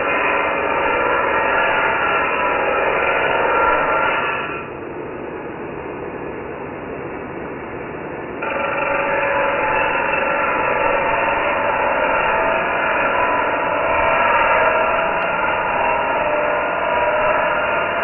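Electric angle grinder grinding steel, a steady grinding with a whine. About four and a half seconds in, the sound drops quieter and duller for roughly four seconds, then comes back abruptly at full strength.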